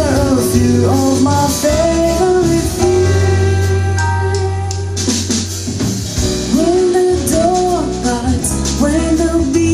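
Live band music: a woman singing a melody over guitar, drum kit and sustained low bass notes.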